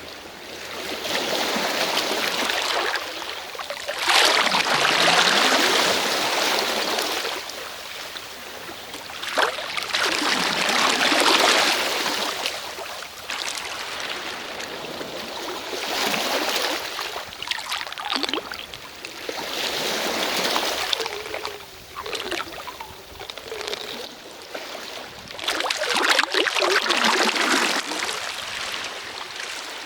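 Sea waves washing onto a shore: a hiss of water that swells and ebbs, one surge about every five or six seconds.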